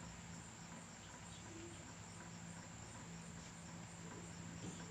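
Faint insect chirping: a high, steady trill pulsing about two or three times a second, over a low steady hum.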